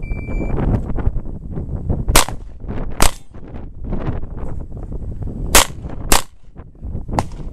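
Gunshots: five sharp single cracks, spaced unevenly over about five seconds, from pistol shooting on the range.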